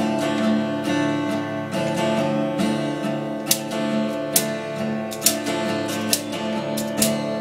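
Acoustic guitar strumming chords steadily, with no singing. From about three and a half seconds in, sharp clicks come roughly once a second.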